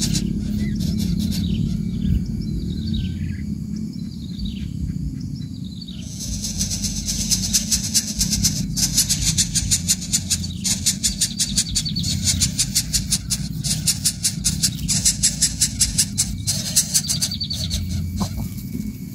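Greater coucal chick begging at the nest while the adult feeds it: a few falling calls, then from about six seconds in a rapid rasping pulse of about three a second, over a steady low rumble.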